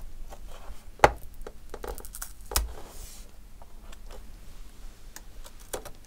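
Metal spudger prying rubber feet off a laptop's bottom case: scattered small clicks and scrapes, with a sharp snap about a second in and another at about two and a half seconds.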